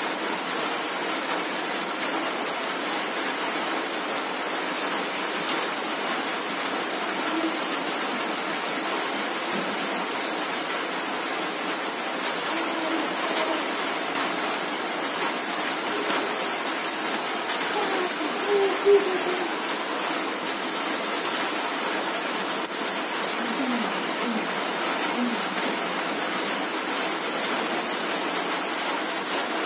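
Steady, even hiss of background noise, with faint distant voices now and then and one brief louder sound about 19 seconds in.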